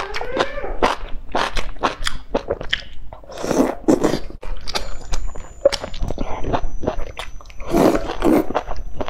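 Close-up mouth sounds of eating: quick wet chewing and lip-smacking clicks, with two longer slurps of noodles, one about three and a half seconds in and one near the end.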